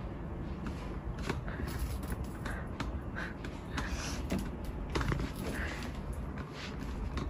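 Quiet rustling and scattered light clicks from a handheld camera and a person's careful movements, over a steady low room hum.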